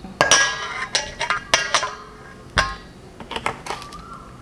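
A spoon clinking and tapping against a bowl or jar while seasonings are spooned into a salad dressing: a series of irregular, ringing chinks, the densest cluster at the start.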